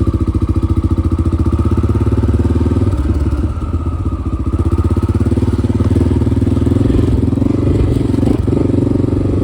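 Honda XR dirt bike's carbureted single-cylinder four-stroke engine running under way, with steady firing pulses; it eases off about three seconds in and then picks up again.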